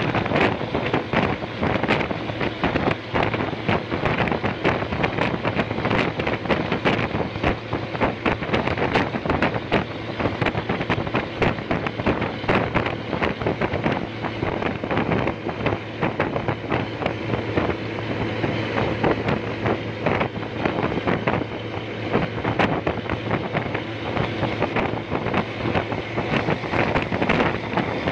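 Wind buffeting the microphone held out of a moving bus's window, over the steady drone of bus engines and tyre noise at motorway speed.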